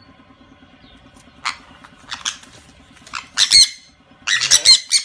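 Sun conures squawking: short, harsh screeches, a few spaced ones at first, then a quick run of several close together near the end.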